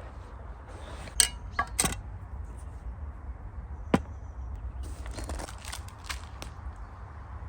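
A few sharp knocks and clicks: three near the start, one at about four seconds, then a quicker run of lighter clicks over the next second and a half, over a steady low rumble.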